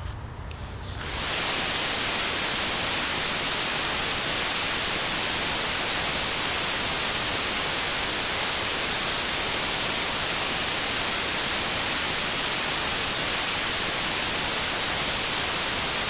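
A steady, loud hiss of white noise, played as a music track, which comes in abruptly about a second in.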